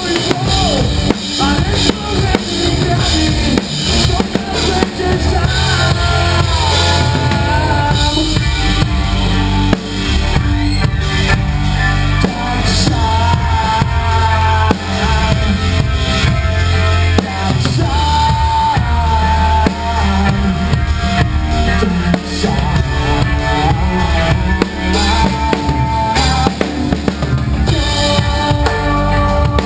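Rock song with a drum kit played hard and prominent in the mix: kick drum, snare and Anatolian cymbals, under a held melody line.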